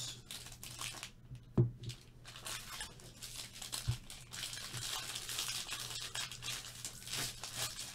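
Foil trading-card pack wrappers being torn open and crinkled by hand, with a sharp thump about one and a half seconds in and a smaller knock a few seconds in. A faint steady low hum runs underneath.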